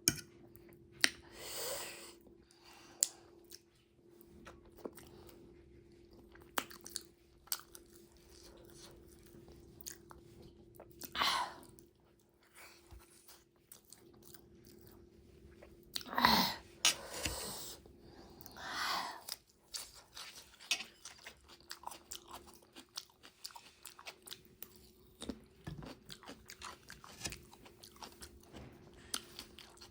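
Close-miked mukbang eating: steady chewing with crisp, crunchy bites of food, and a few louder noisy mouthfuls partway through.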